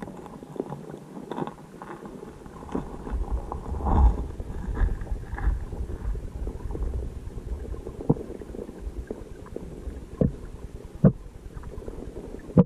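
Muffled underwater rumble and irregular knocking picked up by a submerged camera, with a few sharp thumps, the loudest about eleven seconds in.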